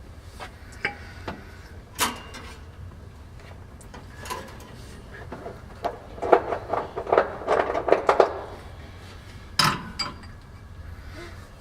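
Metal tools and parts clinking and knocking during work on a Model A Ford transmission installation. There are scattered single knocks, a rapid flurry of clinks around the middle, and one sharp knock near the end.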